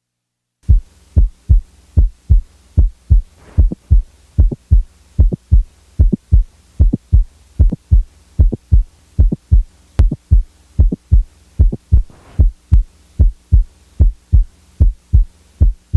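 Heart sounds heard through a stethoscope: a steady, regular lub-dub of the first and second heart sounds, with a mid-systolic non-ejection click added in systole and then taken away again. This is the kind of click most often caused by mitral valve prolapse.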